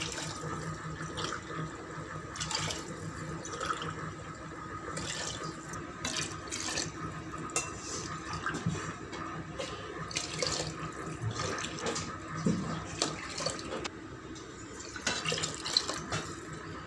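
Water poured repeatedly from a steel tumbler into a pot of chicken biryani masala, splashing into the liquid, with short splashes and clinks throughout.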